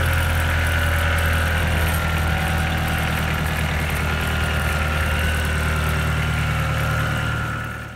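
Enclosed engine of a custom-built HydroClean unit running steadily at idle on its test run, then cutting off abruptly near the end.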